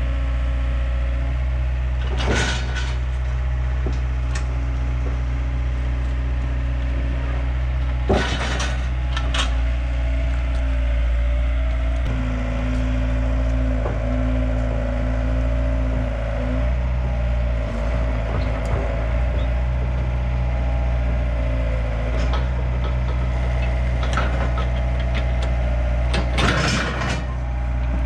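A diesel engine running steadily, with a wavering whine over it and a few knocks and clatters: about two seconds in, around eight seconds in, and near the end.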